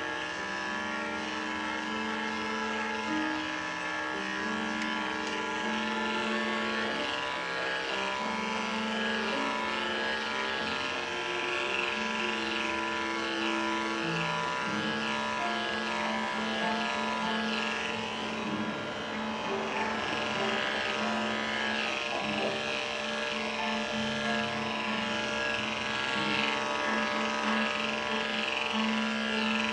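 Background music: a melody of held notes that step from pitch to pitch every second or so, over a steady backing.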